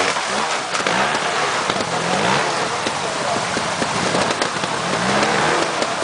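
Trials motorcycle engine running at low revs on a rocky climb, with short throttle blips about two seconds in and again about five seconds in, under a steady rough crackling hiss.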